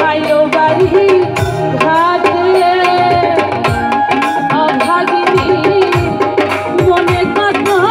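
Live Bengali folk song: a woman singing over a band, with steady tabla strokes under a wavering melody line.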